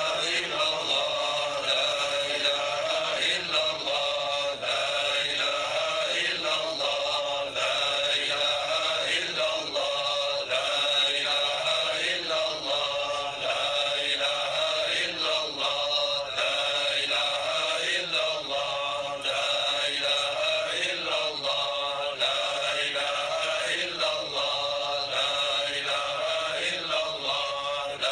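Male voice chanting an Islamic devotional song (a nasheed), in slow repeating sung phrases.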